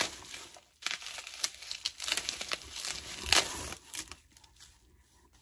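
Plastic bubble wrap crinkling and crackling as it is pulled open and unwrapped from a bottle by hand, dying away about a second before the end.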